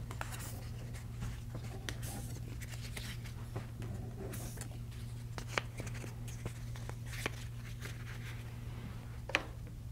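Light handling noise as prop detectors are taken off a drone's arms: scattered small plastic clicks and rustles, a few sharper single clicks in the second half, over a steady low hum.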